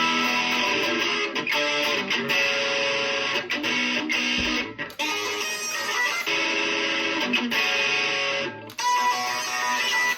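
Guitar-only instrumental cover of a pop-rock song, with several guitar parts playing melody and chords together. The playing breaks off briefly twice, about midway and near the end.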